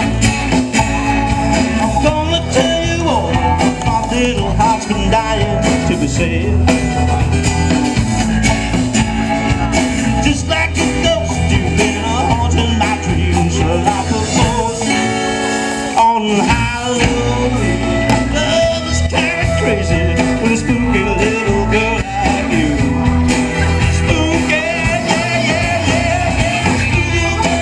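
Live band playing amplified music through a PA, with acoustic and electric guitars and bass.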